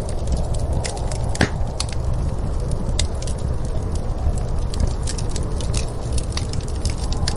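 Wood fire crackling in a fireplace, with irregular sharp pops and snaps, over a steady low rumble of snowstorm wind.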